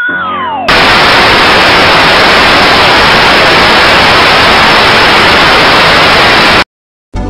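Loud, even TV static hiss that starts abruptly just under a second in, after an electronic tone gliding downward, and cuts off suddenly near the end.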